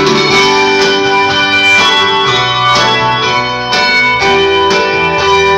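Handbell choir ringing a piece on brass handbells: many bells struck together in chords, their tones ringing on and overlapping, with low bells holding long notes underneath.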